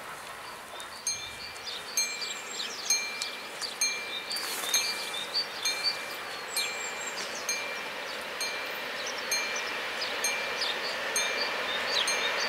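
Level-crossing warning bell ringing in an even rhythm of about two strokes a second, with the noise of an approaching train slowly rising underneath.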